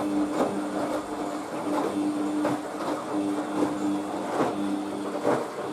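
Front-loading washing machine running on its test after reassembly: a steady motor hum with soft thuds about once a second.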